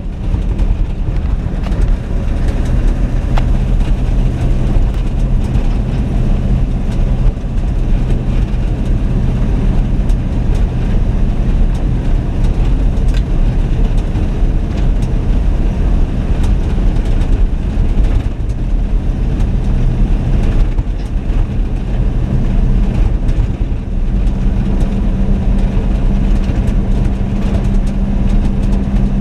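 Ford F-700 dump truck's engine running steadily under way on a gravel road, with tyre and road noise underneath. The engine note shifts about four-fifths of the way through.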